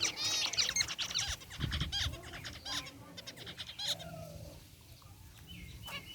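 A flock of zebra finches calling: many short, nasal, repeated calls overlapping, busy for about four seconds, then thinning out to a few fainter calls.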